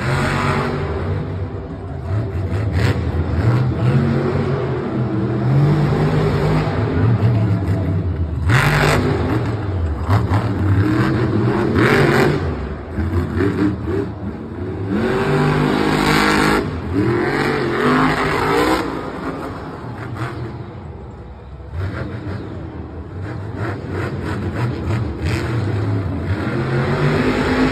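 Monster trucks' supercharged V8 engines revving hard over and over, the pitch rising and falling, with several loud bursts of noise about 9, 12 and 16 seconds in.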